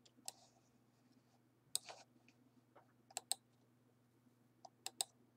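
Faint clicks of a computer mouse, single and in quick pairs, over a faint low steady hum.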